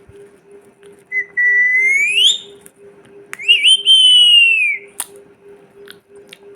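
Pet parrot giving two loud whistles: the first rises in pitch, the second wavers at its start, then holds and slowly falls.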